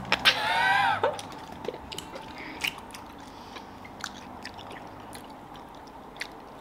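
A woman's brief high-pitched vocal sound, bending in pitch, in the first second, then quiet chewing of a soft gummy candy with small scattered mouth clicks.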